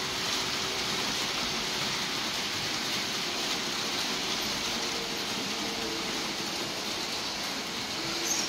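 Märklin HO model trains running on the layout's metal track: a steady whirring rush of wheels rolling over rail, with a faint motor hum underneath.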